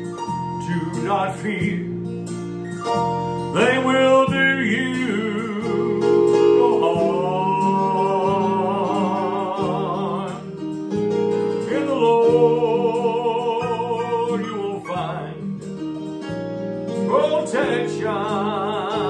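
A recorded gospel song: a solo voice sings long held notes with vibrato over a steady instrumental accompaniment, in phrases that break off briefly about ten seconds in and again near the end.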